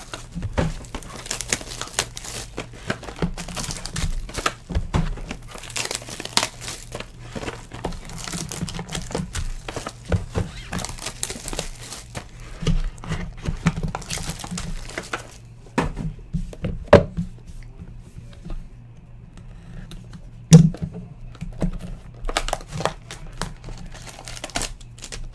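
Foil trading-card packs and wrappers crinkling and tearing as they are handled and opened, dense for the first half and sparser after. Two sharp knocks come in the second half, the later one the loudest sound.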